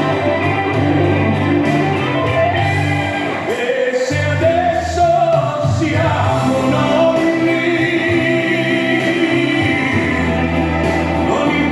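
Song with a singing voice over a band with electric guitar and a steady bass line.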